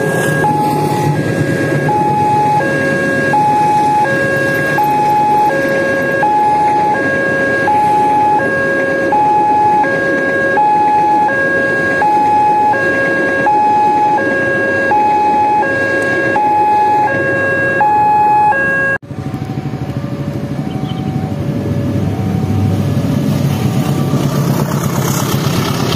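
Railway level-crossing warning alarm sounding its alternating high-low two-tone signal, about one cycle a second, over the rumble of a passing passenger train, warning that a train is crossing. It cuts off suddenly about two-thirds of the way in, after which a fainter crossing alarm and train and traffic noise go on.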